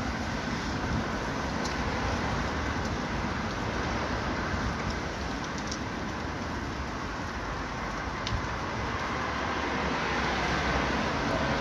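Steady rushing noise of riding a bicycle, wind and road noise picked up by a hand-held phone, with a few faint clicks.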